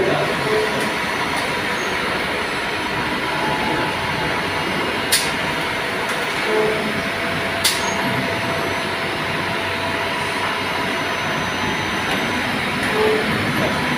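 Steady drone of running CNC workshop machinery, with two sharp clicks about five and seven and a half seconds in.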